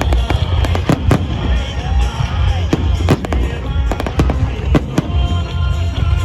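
Fireworks salute bursting in a rapid, irregular run of sharp bangs, more than a dozen, over loud music with a heavy bass.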